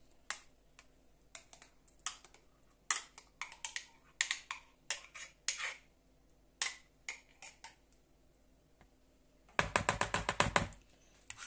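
Metal spoon clicking against a glass jar while scooping out thick sour cream, in scattered single clicks, then a fast run of taps near the end.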